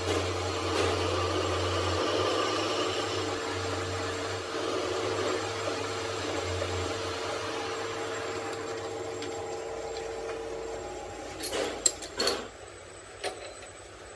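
Workshop machine motor running steadily with a held whine. It fades and stops about eleven seconds in, then a few sharp knocks follow.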